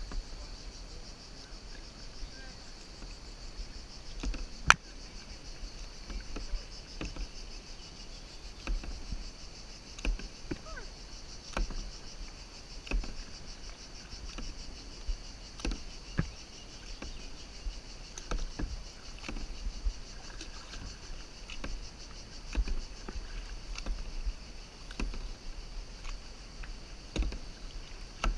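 Kayak paddling: repeated splashes and knocks of the paddle strokes against the water and the plastic kayak, about one a second, with one sharp knock about five seconds in, muffled through a waterproof camera case. A steady high insect buzz runs behind.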